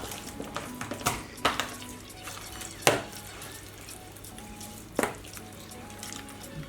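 Hands rubbing seasoning into raw chicken: a few sharp wet smacks and squelches, the loudest about three seconds in, over soft background music.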